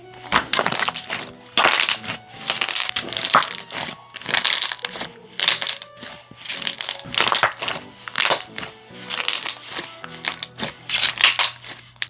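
Thick and glossy slime being stretched, folded and pressed by hand, giving a quick series of loud air-bubble pops and crackles, with soft background music underneath.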